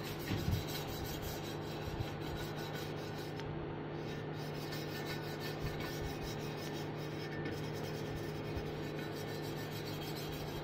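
A fat bike's painted frame tube being rubbed down by hand with an abrasive: a continuous scraping rub as the paint is worked off the metal. A steady low hum sits underneath.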